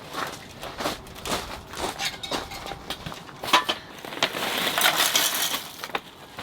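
Irregular light clinks and knocks of small hard objects being handled, with a few seconds of hissing starting about four seconds in.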